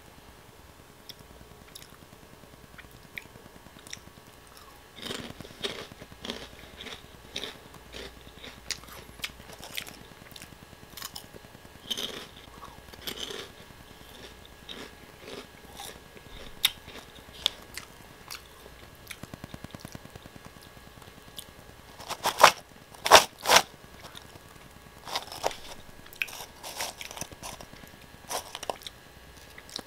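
Oh!Gamja potato snack sticks bitten and chewed close to the microphone: irregular crisp crunches. The loudest is a tight run of crunching bites about two-thirds through.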